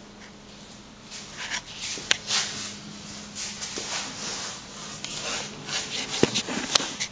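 Rubbing and scraping handling noise, with a few sharp knocks, as a hand-held camera is moved about under a car on a lift, over a faint steady low hum.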